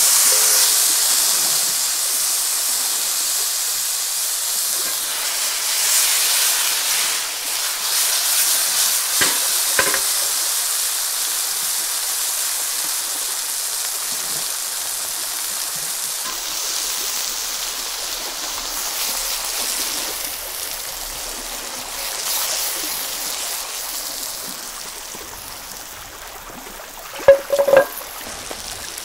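Ribeye steak sizzling in a cast iron pan with garlic and rosemary: a steady high hiss that swells and eases, with a couple of small clicks about a third of the way in. The sizzle fades toward the end, and two short sharp knocks follow close together.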